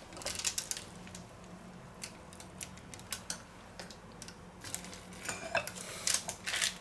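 Light metallic clicks and clinks from a stainless steel hand burger press being pushed down on ground beef and then lifted off, a few near the start and a denser run over the last two seconds.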